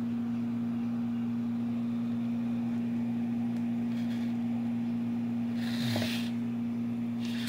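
A steady low electrical hum, with a brief rustle of the cardboard box being handled about six seconds in.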